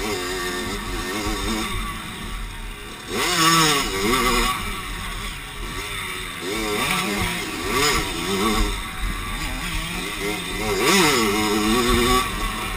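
Kawasaki motocross bike's engine revving up and down as it is ridden around a dirt track, climbing hard out of corners about three times, with wind buffeting the microphone.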